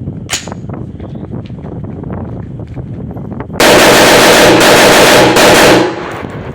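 AR-15 pistol firing a quick string of about three shots, loud enough to overload the recording so the reports run together.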